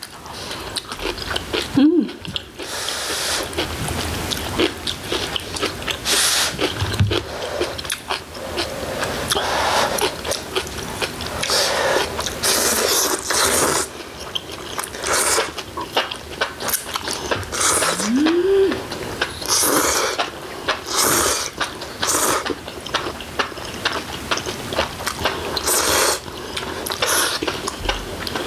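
Close-miked eating: slurping and chewing wide Korean glass noodles (dangmyeon) and bulgogi from a hotpot, in irregular bursts, with scattered clicks of utensils. A short rising hum comes twice, early on and about two-thirds through.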